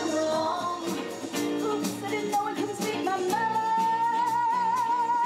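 Stage-show music with singing over a steady beat; a little past halfway a voice holds one long note with vibrato.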